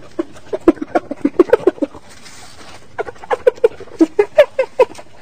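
Spotted hyena giggling: two bouts of quick, short cackling notes, about six a second, with a pause of about a second between them.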